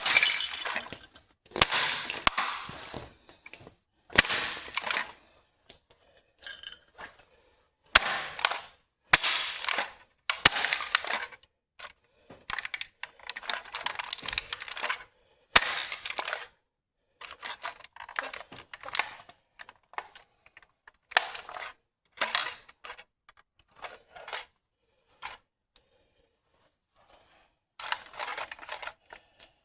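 Toy BMW X5 model car being crushed underfoot: its body cracks and crunches in repeated bursts of about a second each, with several sharp snaps.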